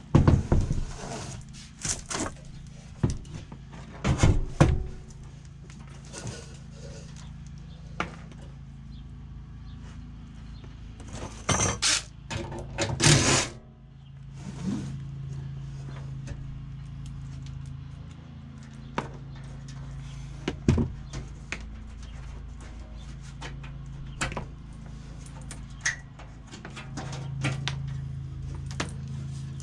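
Irregular knocks, clanks and scrapes of hands and tools working on blower motor parts, with a few sharp, loud bangs among them, over a steady low hum.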